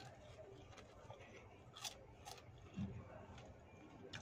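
Faint chewing of a mouthful of rujak petis: raw vegetables such as cucumber, bean sprouts and cabbage, with tofu and rice cake in shrimp-paste sauce. A few crisp crunches come about two seconds in, then a soft low thump.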